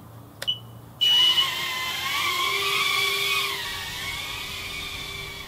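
FuriBee F90 Wasp mini FPV quadcopter's motors and propellers spinning up suddenly about a second in, after a faint click, into a high-pitched whine of several tones that rise and fall together with the throttle and settle lower near the end.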